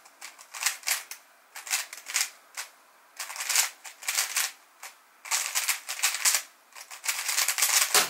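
MoYu WRM v9 Maglev 3x3 speedcube being turned very fast in a speedsolve: rapid bursts of plastic clicking and clacking with brief pauses between them. It ends with a thump as both hands come down on the keyboard to stop the timer.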